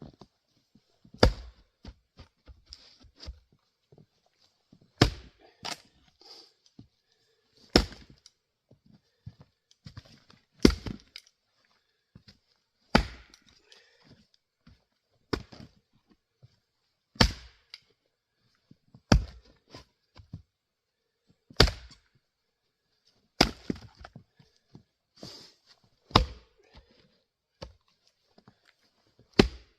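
Axe splitting Grand Fir rounds on a chopping block: about a dozen sharp chopping strikes, one every two to three seconds, some followed by the crack of the wood parting.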